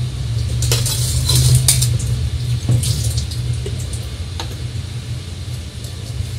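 Steel kitchen utensils and spoons clinking and clattering a few times, mostly in the first half, over a steady low hum.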